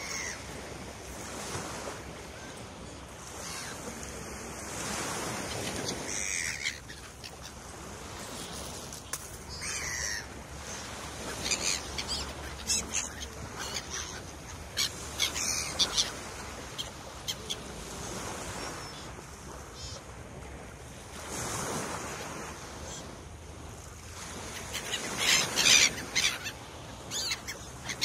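A flock of gulls calling, many short calls coming in clusters, thickest through the middle and near the end, over the steady wash of small waves on the shore.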